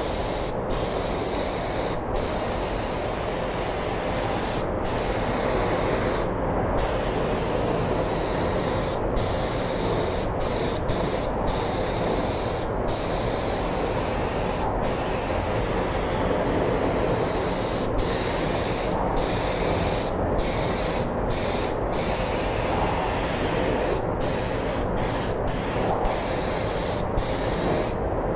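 Gravity-feed spray gun hissing as it sprays thinned, dye-tinted lacquer onto a guitar body. The passes are broken by about twenty brief pauses as the trigger is let go, over a steady low rumble.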